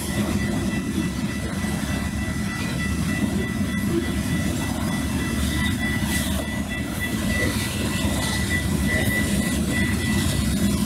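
Wisconsin & Southern freight train of covered hopper cars rolling past, with a steady rumble and clatter of wheels on the rails and a thin steady high whine above it. The sound is dulled by a wind-reduction filter turned all the way up.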